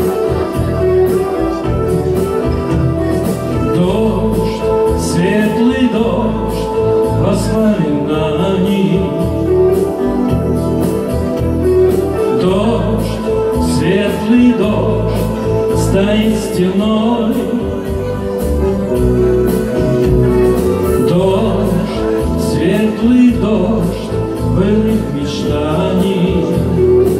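Live song: a man singing in phrases over a steel-string acoustic guitar, with sustained backing chords underneath.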